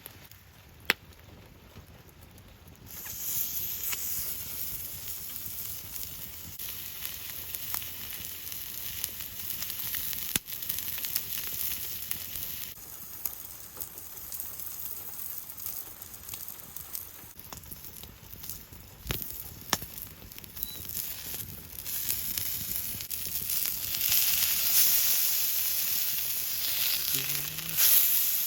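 Food, apparently meat, sizzling on a small hot iron griddle plate. The sizzle starts about three seconds in and grows louder near the end, with a few light clicks along the way.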